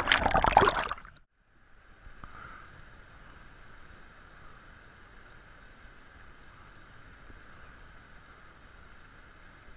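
Loud churning water against a submerged camera, which cuts off abruptly about a second in, then the faint, steady rush of a shallow, rocky river.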